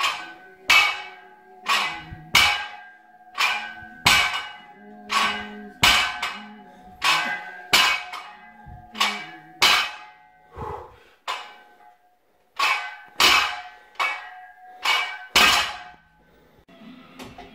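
85 kg plate-loaded barbell clanking again and again through a set of bent-over barbell rows, the iron plates knocking as the bar is pulled up and set back down on the rubber floor mat. Sharp clanks, each followed by a short metallic ring, come roughly one to two a second and stop about 16 seconds in.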